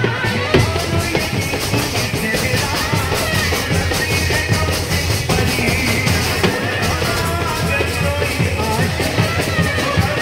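Indian wedding brass band playing live: trumpets carry the tune over a steady drum beat.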